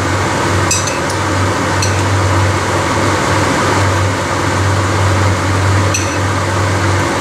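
A large wok of lagman broth at a rolling boil, bubbling steadily, over a constant low hum, with a few faint clicks.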